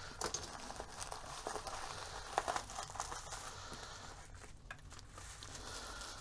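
Plastic packaging crinkling and rustling as a small package is opened by hand, with scattered light clicks and a sharper crackle about two and a half seconds in.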